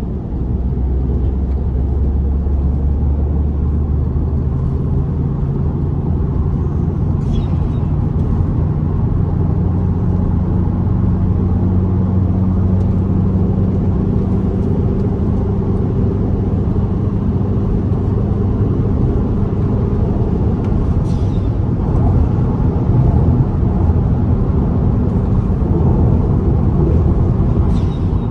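Car engine and road noise while driving at speed. The engine note climbs over the first several seconds, then holds steady, a little louder near the end.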